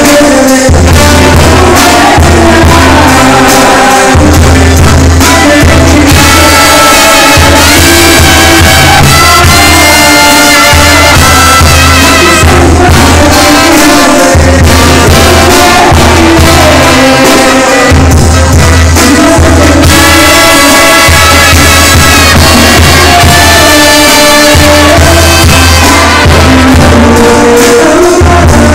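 Live Mexican banda music, loud: trumpets and clarinets playing over a bass drum and snare with cymbal and a pulsing low bass, with a male singer on a microphone.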